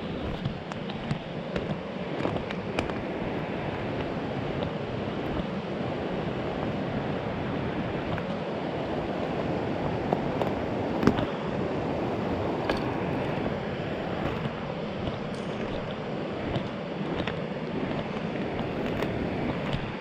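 Mountain creek water rushing steadily over rocks and logs, with a few faint clicks and one sharper knock about eleven seconds in.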